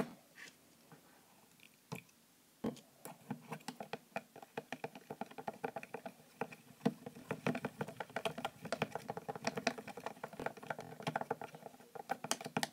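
Chopstick stirring a glue-and-water mix in a plastic tub: quick, light clicks and taps against the tub, starting in earnest after about two and a half seconds of near quiet.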